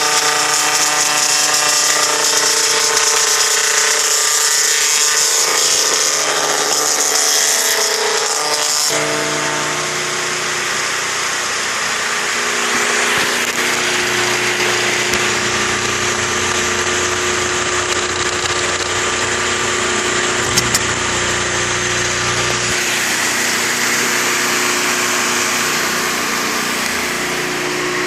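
Sawmill machinery running steadily, an engine-driven saw working through wood. The tone shifts about nine seconds in, when the strong high hiss drops away and the lower machine tones change.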